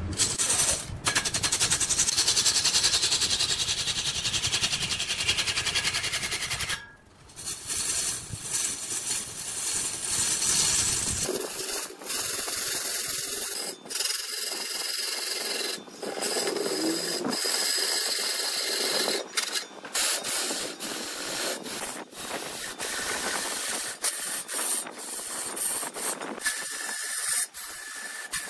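A hand tool cutting into wood spinning on a wood lathe: a steady hissing scrape. A low rumble under it stops abruptly about eleven seconds in, and scattered sharp knocks follow.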